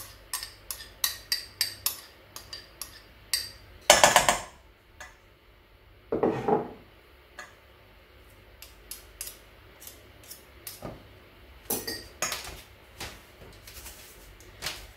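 Spoon clinking and scraping against a ceramic bowl and a stainless steel mixing bowl: a quick run of light clinks for the first few seconds, two louder knocks about four and six seconds in, then scattered clinks.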